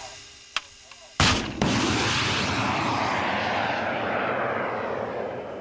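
FGM-148 Javelin anti-tank missile launch. After a short click, two sharp bangs come close together about a second in: the soft-launch ejection, then the flight motor igniting. The rocket motor's rushing hiss follows and slowly fades as the missile flies away.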